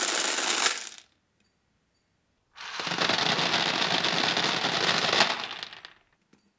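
A rapid stream of 0.36 g airsoft BBs spraying out of a midcap magazine and clattering into a plastic box, as a dense crackle in two runs: the first stops about a second in, the second starts about two and a half seconds in and stops about six seconds in.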